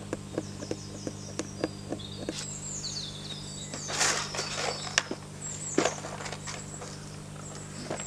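Quick regular ticks, about three a second, as a fingernail picks at the sticker on a steel tomahawk head. After a couple of seconds this gives way to rustling and knocks as things are handled in a plastic toolbox, with birds chirping.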